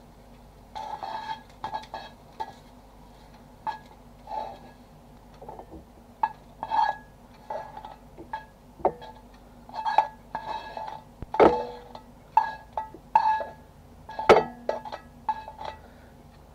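Kitchen tongs clinking and tapping against a frying pan and a ceramic plate while stir-fried noodles are served, in irregular clusters of knocks, some with a short ring. The clinks come thicker and louder in the second half.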